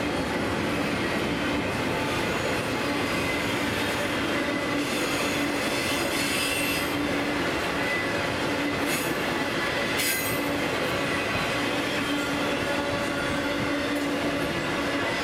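Double-stack intermodal freight train rolling past: a steady rumble of steel wheels on rail with a thin squealing tone running through it. Two brief high-pitched squeals stand out about nine and ten seconds in.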